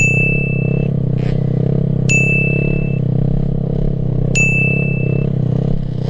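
Kawasaki KLX D-Tracker's single-cylinder engine running at a steadily held throttle through a circle wheelie. Three bright, ringing dings, each just under a second long, come about two seconds apart over it: a sound effect edited in to mark the on-screen count.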